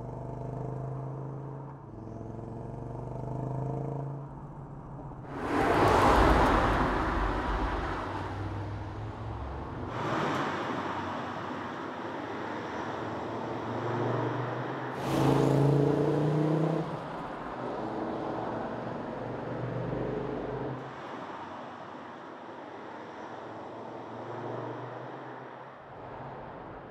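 Audi quattro five-cylinder engine revving and pulling up and down through the gears. Two loud rushes of noise come about five and fifteen seconds in, the loudest moments in the stretch.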